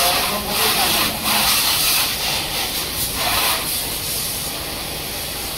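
High-pressure washer jet spraying water onto a motorcycle. The hiss comes in strong surges for the first three and a half seconds, then runs steadier and quieter.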